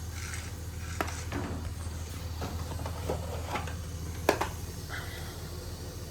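Steady low hum of a gas-fired steam boiler running, with a few scattered clicks and knocks. The loudest knock comes about four seconds in.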